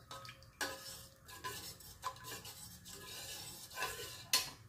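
Steel spoon stirring a thin coconut-milk and jaggery mixture in a stainless steel pot, in soft irregular scrapes against the pot, with one louder clink near the end.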